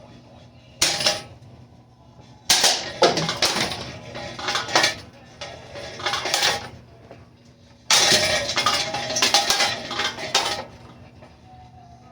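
Hampton Bay Hugger ceiling fan being smashed apart: bursts of metallic clattering and crashing, about five times, the last and longest lasting a couple of seconds.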